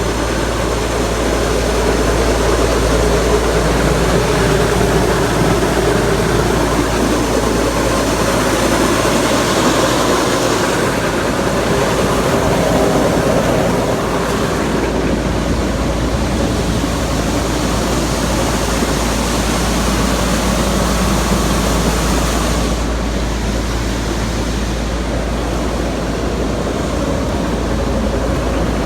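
Farm machinery running steadily and loudly while a grain wagon of soybeans is unloaded, a continuous engine rumble under an even mechanical noise.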